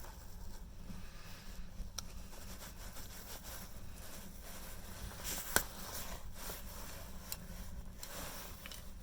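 Faint clicks and light scraping from small phone parts and pins being handled, with one sharper click about five and a half seconds in, over a low steady hum.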